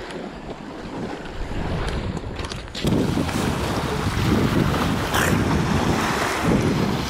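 Wind buffeting the microphone over small waves washing onto a rocky saltwater shore. It gets louder and heavier about three seconds in.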